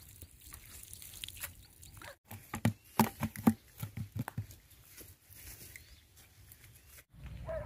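Wet nylon cast net being handled on the ground: rustling, with a quick cluster of sharp taps and thumps about three seconds in.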